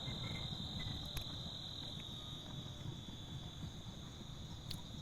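Insects chirring in a steady, continuous high-pitched chorus over a faint low rumble.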